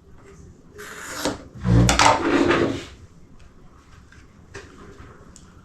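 Objects handled on a hard work surface: rustling from about a second in, then a loud thump and clatter about two seconds in, then quieter handling noise.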